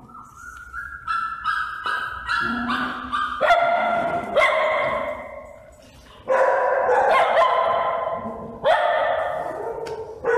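Small dogs barking in repeated bouts, with a string of short rising yips in the first few seconds.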